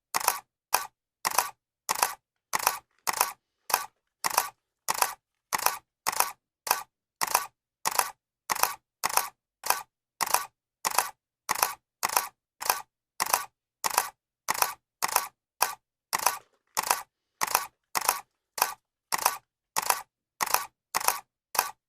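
Camera shutter clicking sound effect repeated at an even pace, a little under two clicks a second, each a quick double click with silence between.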